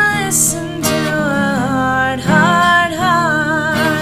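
A voice singing long held notes with vibrato over acoustic guitar.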